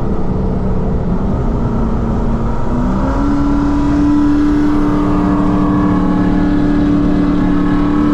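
Supercharged Chevy SS's V8 engine heard from inside the cabin while driving. Its note climbs about three seconds in and then holds steady and a little louder.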